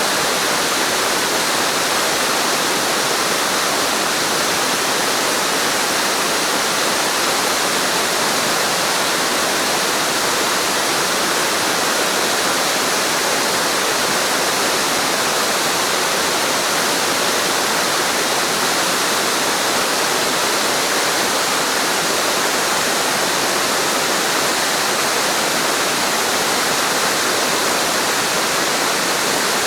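Waterfall pouring in a steady, loud, even rush of falling water, unchanging throughout.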